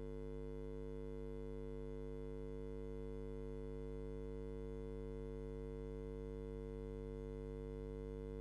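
A steady electrical hum made of several held tones at once, unchanging in pitch and level, cutting off suddenly at the end.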